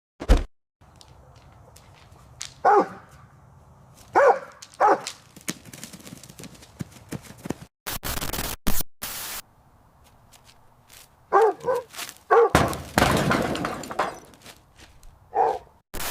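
Dog barking in short separate barks, a couple at a time, with a longer rough, noisy stretch of scuffling or snarling near the middle of the barking. Bursts of loud hiss-like noise come in between the barks.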